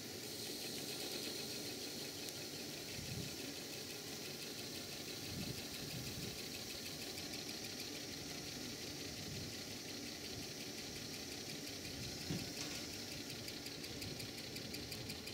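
Miniature live-steam locomotive raising steam: a faint steady hum with a light hiss, and a few soft knocks as a hand works the fittings on the cab.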